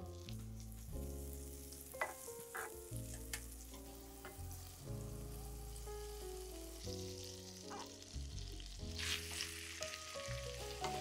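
Food sizzling in a frying pan and being stirred, with a few light clicks, over background music. The sizzle swells about two-thirds of the way through.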